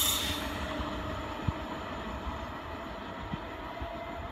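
Regional train with an E464 electric locomotive running away into the distance. Its running noise fades steadily, with a faint steady whine and two light clacks from the rails.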